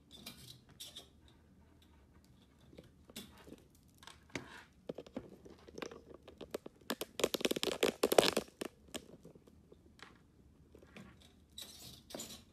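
Intermittent rustling and scratching handling noises, with a dense burst of crackling scrapes from about seven to eight and a half seconds in.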